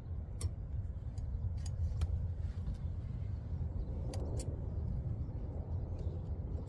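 A few light metallic clicks as brake pads are set into a disc brake caliper bracket, over a steady low rumble.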